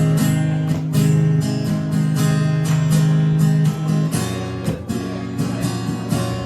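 Acoustic guitar strumming chords: the instrumental intro of a song, played before the singing comes in.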